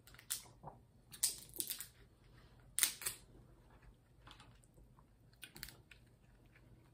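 King crab leg shell crackling and clicking as it is pulled apart by hand to get the meat out: a handful of short, crisp cracks, the loudest about three seconds in.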